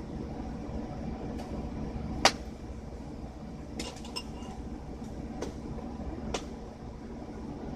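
Hand tools working metal hitch bolts: a few sharp, irregular metallic clinks of a wrench or socket on steel, the loudest a little over two seconds in. A steady low hum runs underneath.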